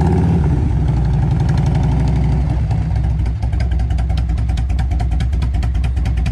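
1998 Harley-Davidson Electra Glide Classic's Evolution V-twin idling just after being started, running a little faster for the first two to three seconds before settling to a steady idle. It is being run to circulate fresh oil through the engine and new oil filter after an oil change.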